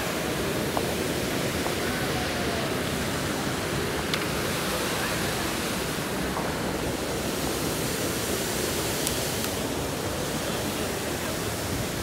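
Steady rushing of a small cascade in a rocky mountain stream, an even, unbroken water noise, with a few faint clicks.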